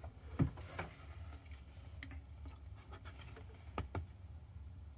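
Faint handling noise and a few short clicks, the sharpest two close together about four seconds in, from a finger pressing the button on a solar charge controller.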